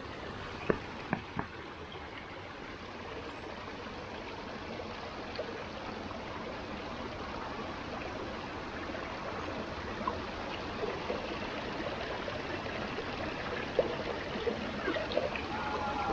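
Shallow rocky creek running and trickling steadily between boulders. A few sharp taps of shoes stepping on the rocks come about a second in and again near the end.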